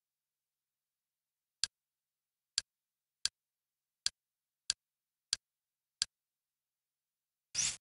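Kodi 17 menu sounds: seven short clicks, roughly one every two-thirds of a second, as the menu focus moves, then a longer, fuller click near the end as an item is selected.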